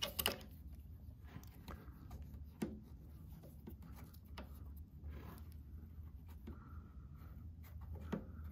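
Faint, scattered small clicks and taps of metal parts and tools being handled while the shoulder screw on the walking-foot linkage of a Cowboy CB-3200 sewing machine is worked loose, over a low steady hum.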